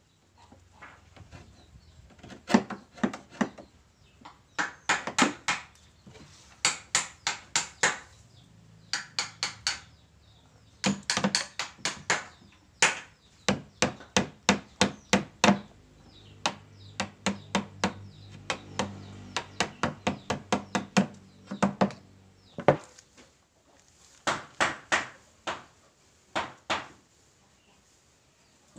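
Hammer striking a wood chisel that chops a notch into the corner of a mitred wooden frame: bursts of sharp knocks, several a second, with short pauses between bursts. The knocks stop shortly before the end.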